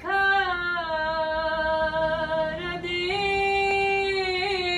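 A woman singing a Turkish Black Sea folk song unaccompanied, drawing out long held notes, with a dip in pitch about halfway through before she rises again to a sustained note.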